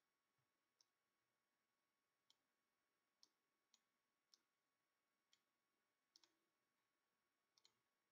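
Near silence broken by faint, scattered computer mouse clicks, about ten of them, some in quick pairs.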